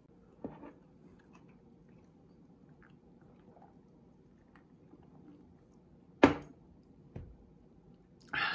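Faint crackling ticks from ice and fizzing soda in a glass, with a sharp knock about six seconds in and a smaller one about a second later. Near the end comes a short strained vocal exclamation.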